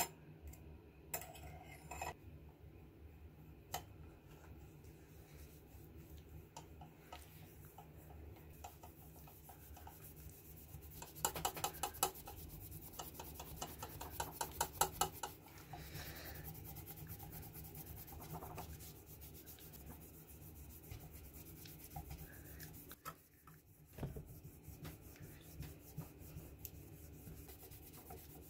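Faint hand rubbing on the steel blade of old scissors, working in a paste with quick back-and-forth strokes. About halfway through comes a louder, faster run of strokes lasting a few seconds.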